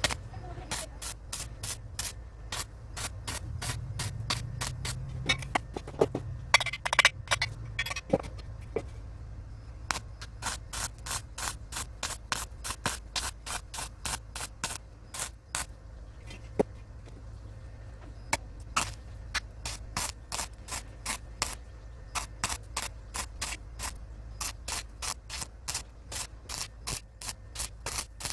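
Electric arc welding on steel greenhouse frame pipe: the arc crackles in short, evenly repeated pulses, about two or three a second, with a denser run of crackle a few seconds in, over a steady low hum.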